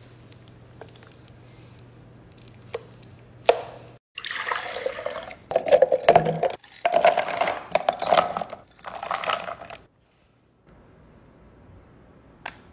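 A blender crushing frozen fruit for a thick smoothie, run in several short bursts for about six seconds, starting about four seconds in. Before it, a metal spoon clicks faintly against the jar while scooping out thick smoothie.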